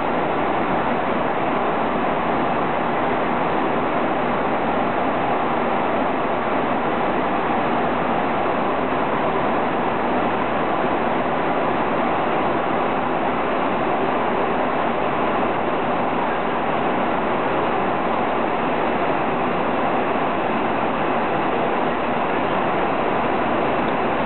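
Jet airliner cabin noise at cruise: a steady, even rush of airflow and engine sound heard from inside the cabin, with no change in level.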